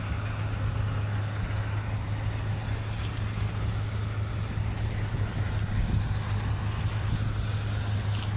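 Farm machinery engine running steadily with a low, even hum, and wind on the microphone.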